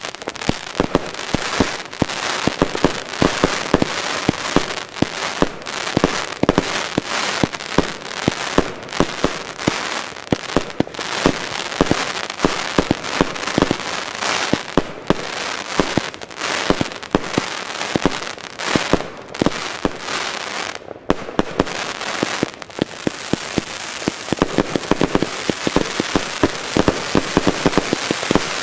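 Rubro Transbomber 144-shot, 20 mm compound firework battery firing shot after shot in quick succession: sharp launch reports several times a second over a continuous dense crackling from the crackling-star bursts.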